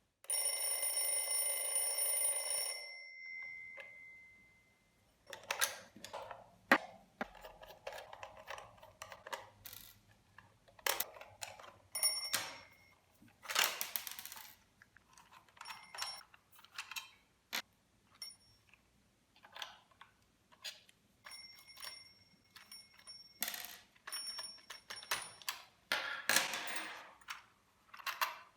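IKEA DEKAD alarm clock's bell ringing rapidly for about three seconds, then stopping, its tone dying away. After that come many small clicks, knocks and rattles of the clock being handled, with a few brief tings of the bell in between.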